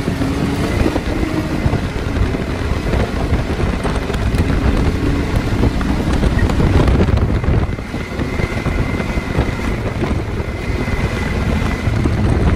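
Can-Am Maverick X3 side-by-side driving along a road, its engine running under heavy wind noise on the open cab's microphone.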